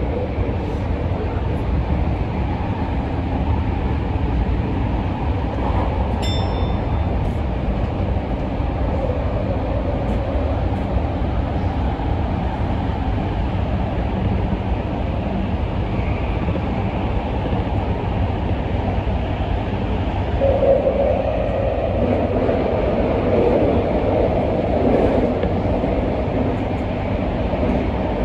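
Tokyu 2020 series electric train running through a subway tunnel, heard from inside the front car: a steady low rumble of wheels and running gear. A brief high beep sounds about six seconds in, and the running noise grows louder from about twenty seconds in.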